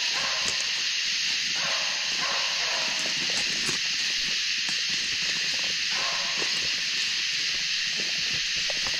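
Redbone coonhounds baying in the distance a few times, over a steady high chorus of summer-night insects.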